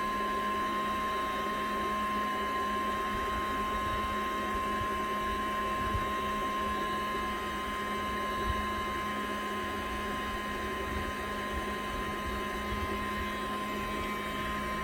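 Prototype liquid-cooling air conditioner running steadily: an even motor hum with a steady high whine over it, from its small electric pump and fan.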